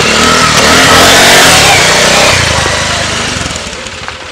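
Motorcycle engine revving hard as the bike pulls away, then fading steadily as it rides off.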